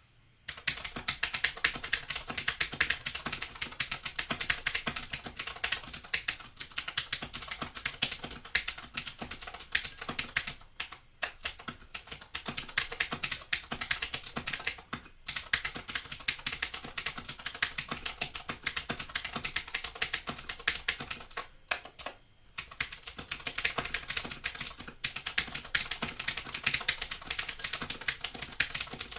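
Fast, continuous typing on a Razer BlackWidow 2013 mechanical keyboard with Cherry MX Blue switches: a dense run of sharp clicks, with a few brief pauses.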